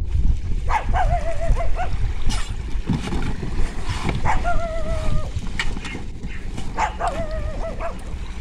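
A dog whining: three drawn-out, wavering high whines, a few seconds apart, over a steady low rumble.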